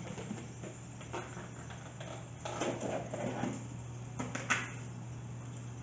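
Chicken pieces being shaken in flour inside a lidded plastic container, then the container being handled and opened, with a few sharp plastic clicks about four and a half seconds in. A steady low hum runs underneath.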